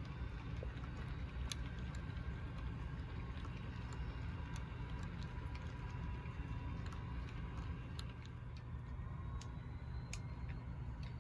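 HO scale model train running along the track: a steady low rumble with faint steady tones and scattered, irregular clicks of wheels over rail joints.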